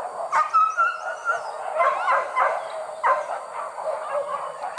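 Hunting dogs yelping and barking in the brush while pursuing a wild boar, in a string of high yips with one longer drawn-out yelp near the start.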